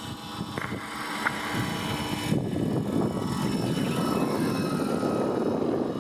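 Electric RC scale helicopter, a Vario Jet Ranger, in flight: the steady whine of its electric motor and drive over the rough chop of the rotor blades. It grows louder over the first two or three seconds and then holds.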